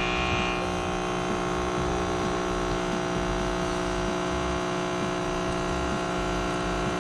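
Capsule espresso machine's pump running with a steady hum as it pushes water through the capsule and dispenses coffee.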